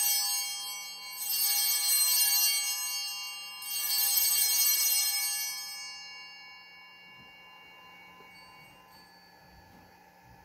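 Altar bells rung at the elevation of the host after the consecration: a shimmering ringing already sounding, then two more shakes of the bells about one and three and a half seconds in. Each dies away, and the last fades out a little past halfway.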